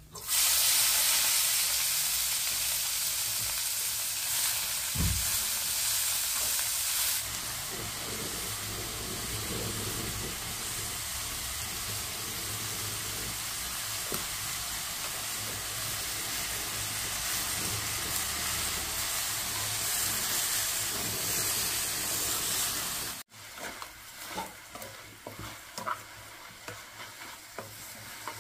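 Food frying in hot oil in a pan: a loud sizzle starts suddenly, eases slightly after about seven seconds and then holds steady. Near the end it drops abruptly to a quieter sizzle with scattered small pops.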